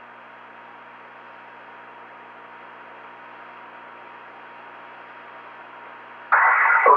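Steady hiss and low hum of an idle audio line, with a faint high steady tone running through it. Near the end a man's voice cuts in abruptly and loudly over the line.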